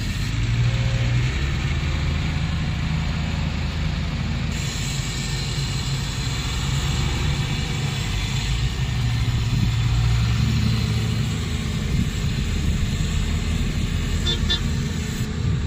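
Heavy diesel engines running steadily, a low rumble from a six-wheel dump truck manoeuvring beside a Volvo excavator. A few brief high beeps sound near the end.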